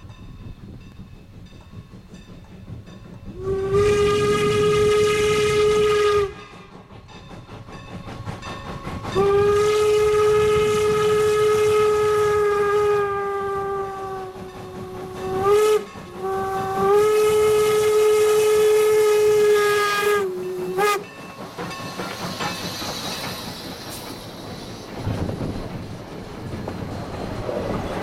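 Strasburg Rail Road No. 475, a 4-8-0 steam locomotive, sounds its steam whistle in the grade-crossing signal: two long blasts, a short one, and a final long one. The loud, steady whistle is followed by the train's rumble and hiss as it draws near, with its cars rolling past at the end.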